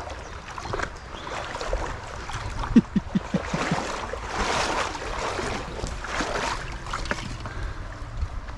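Shallow river water rushing and splashing around the wading angler, with louder splashes about halfway through. A quick run of short squeaks comes about three seconds in.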